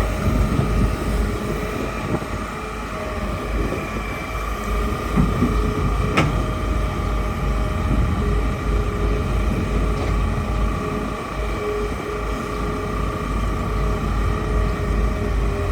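Hitachi excavator's diesel engine running steadily, with a constant high whine over a low rumble. There is one sharp click about six seconds in.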